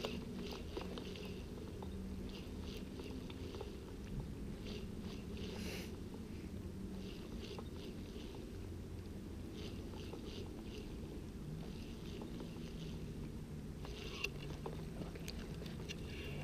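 Faint clicking of a spinning reel being cranked on a slow, steady retrieve, coming in several short runs of quick ticks, over a low steady background rumble.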